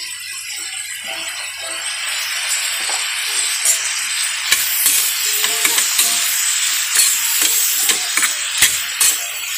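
Soy sauce sizzling in a hot pan of green beans and ground pork, the hiss building during the first couple of seconds. From about halfway through, a spatula clinks and scrapes against the steel pan as the mixture is stirred.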